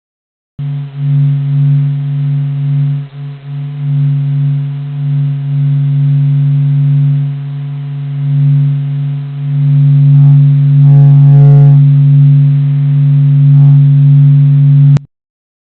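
Sonified 'sound of the Sun': a steady, low, electronic-sounding drone of a few held tones that swells and fades in loudness. It starts abruptly just after the beginning and cuts off suddenly near the end.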